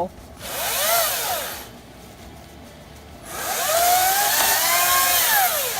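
Chainsaw revved twice: a short burst, then a longer one about three seconds in, each rising in pitch and falling back as the throttle is squeezed and released.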